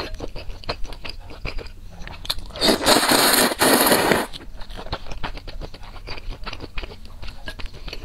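Close-up eating sounds from a bowl of spicy noodle soup: wet chewing and mouth clicks, broken about two and a half seconds in by a loud slurp of noodles and broth straight from the bowl that lasts almost two seconds, then more chewing.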